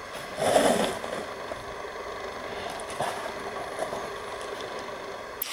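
Stitching thread drawn through the holes of a leather panel by hand: one short rasp about half a second in, then a couple of faint ticks, over a steady background hum.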